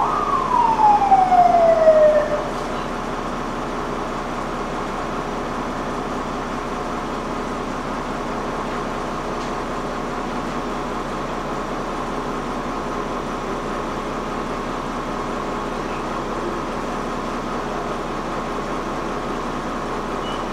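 Steady running drone of a city bus heard from inside while it drives. Near the start comes one loud wail that rises briefly and then falls over about two seconds, like a siren.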